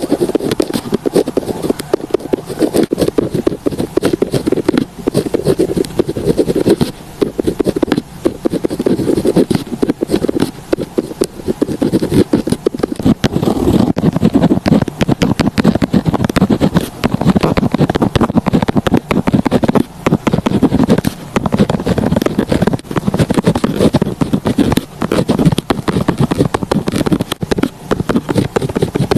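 Pen writing quickly on paper close to the microphone: a continuous run of rapid scratching strokes with brief pauses.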